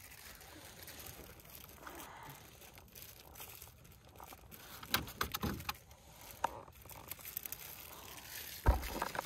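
Handling noise in a small aluminium boat: scattered light clicks and taps as fishing gear is moved, and one heavy low thump near the end.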